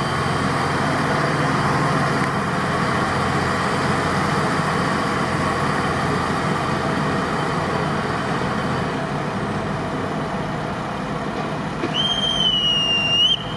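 Diesel railcar running as it pulls out of the station and moves away, its engine and wheels a steady noise. A high-pitched squeal lasting about a second and a half comes in near the end.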